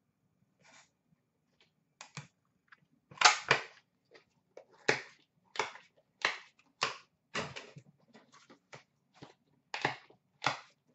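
A series of sharp clicks and snaps, irregular at first, then about one every two-thirds of a second.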